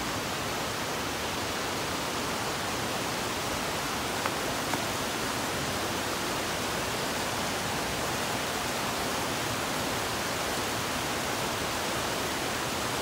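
Rushing water of a small creek drainage, a steady unbroken rush.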